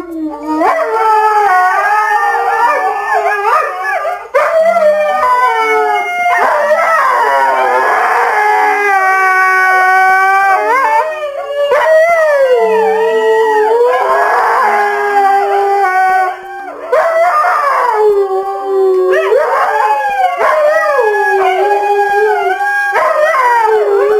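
A dog howling in long, wavering calls that slide up and down in pitch and are held for several seconds each, with brief breaks between them.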